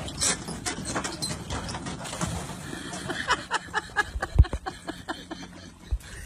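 Running footsteps and a dog's paws knocking on the wooden planks of a dock, in quick, irregular clicks that stop about four seconds in. A dull low thump follows shortly after.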